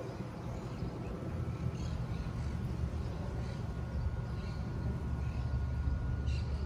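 Outdoor background: a steady low rumble with faint, scattered high chirps.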